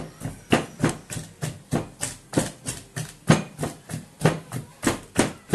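Wooden pestle pounding boiled palm fruits in a mortar by hand: steady, even thuds about three a second. The palm nuts are being mashed to loosen their pulp for banga.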